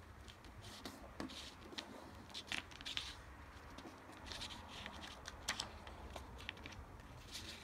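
A sheet of paper being folded by hand on a table into a paper airplane: irregular soft rustling as it is slid and lifted, with a few sharp crisp ticks as the folds are pressed, the clearest about three and five and a half seconds in.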